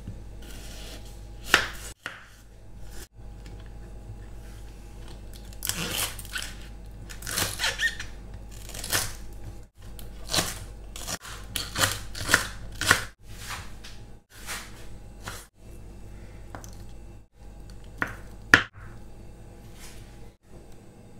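Kitchen knife slicing and chopping onion and green onion on a wooden cutting board: irregular crisp knife strikes against the board, some much louder than others. A faint steady low hum runs underneath.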